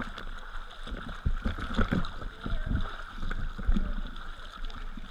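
Seawater slapping and splashing against a float board and camera riding at the surface, with irregular low thumps of water on the housing and splashes from a swimmer's strokes close by.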